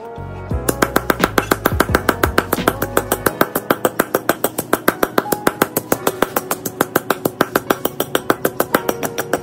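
Stone pestle pounding dry rice grains in a stone mortar, a rapid even beat of sharp knocks, about five a second, starting just under a second in.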